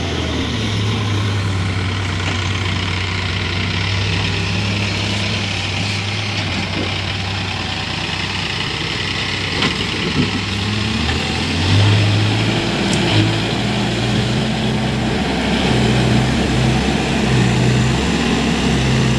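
Diesel engine of a Case 851EX backhoe loader running with a steady low hum, its revs rising a little about twelve seconds in and again near the end.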